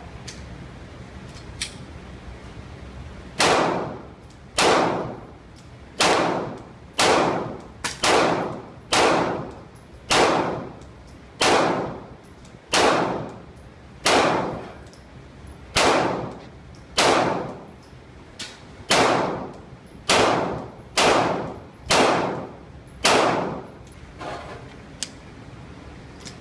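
A Glock pistol firing a string of about seventeen single shots at an unhurried, slightly uneven pace of roughly one a second, each crack trailing off briefly.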